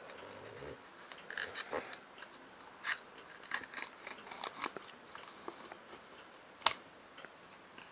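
Foil lid being peeled off a plastic dessert pot: irregular crinkling and crackling of the foil, then one sharp click near the end.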